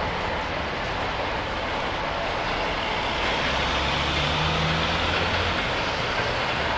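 Steady noise of heavy vehicle engines and street traffic, with a low engine hum that grows louder about four seconds in.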